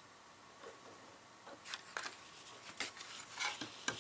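Paper and corrugated card being handled and slid across a cutting mat: a few short rustles, scrapes and light taps, starting about a second and a half in and coming more often toward the end.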